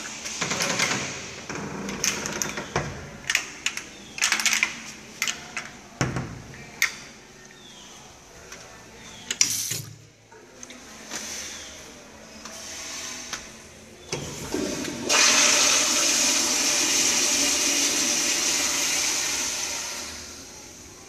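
Scattered knocks and clicks, then about fifteen seconds in an American Standard Madera toilet flushes with a sudden loud rush of water that lasts about five seconds and fades away.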